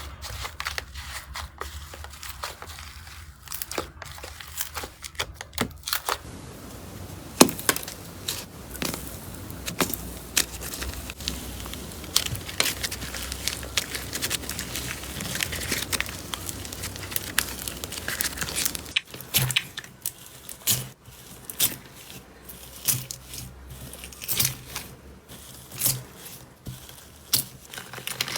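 Slime being squeezed, pressed and poked by hand, giving dense irregular crackling and popping clicks. The texture changes abruptly twice as one slime gives way to another.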